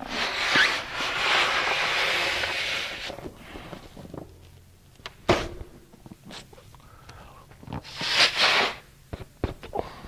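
A man blowing hard into a latex balloon: a long rush of breath for about three seconds. A sharp snap comes about five seconds in, another short rush of air around eight seconds, and small clicks and rubber squeaks near the end as the balloon's neck is knotted.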